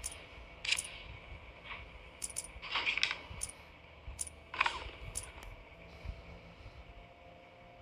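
Casino-chip clinks from a live Dragon Tiger betting app as chips are selected and placed: a dozen or so short, sharp clicks in irregular clusters, mostly in the first six seconds.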